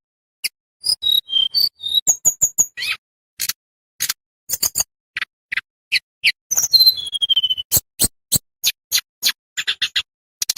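Tledekan bambu songbird singing a rapid string of sharp, clipped chirps and clicks with short high whistled notes, and a falling whistled phrase about seven seconds in.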